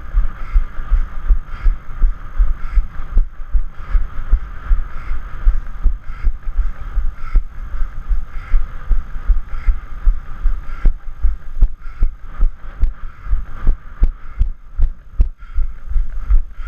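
Running footfalls jolting a body-mounted camera: a steady rhythm of dull thumps at about three strides a second. In the second half, sharp clicks join them as shoes strike the stones of the path.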